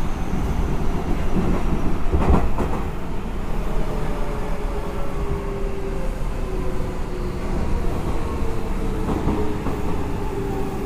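Seibu 6000 series electric train running, heard from inside the car: rumbling wheel and rail noise with a clack of wheels over a rail joint about two seconds in, and the whine of its Hitachi GTO VVVF inverter traction motors slowly falling in pitch as the train slows.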